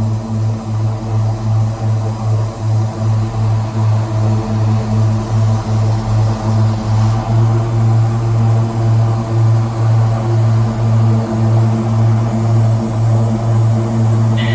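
Turboprop engines of an SA227 Metroliner running steadily at power on the ground, their bleed air pressurizing the cabin. The sound is a loud low drone with a regular throb, about two to three pulses a second.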